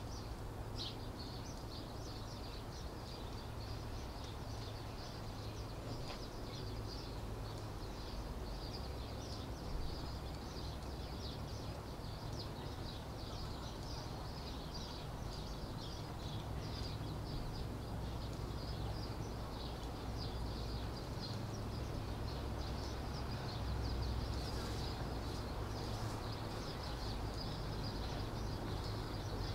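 Outdoor ambience: many small birds chirping rapidly and high-pitched throughout, over a steady low background rumble.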